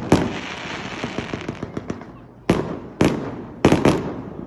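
Fireworks bursting overhead: a loud bang just after the start trails off into a long crackle, then three more bangs come in quick succession past the halfway mark, each followed by crackling pops.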